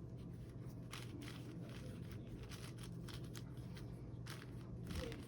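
Plastic Rubik's cube layers being turned by hand, a faint run of quick clicks and clacks at uneven intervals.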